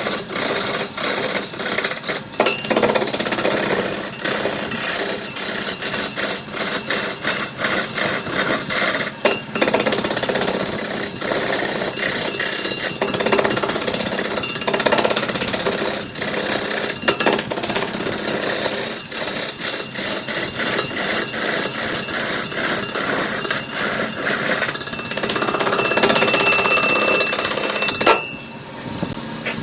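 Power tool cutting wood, with loud, dense, irregular rapid knocking over a steady rasping noise and a faint steady whine. It eases off about two seconds before the end.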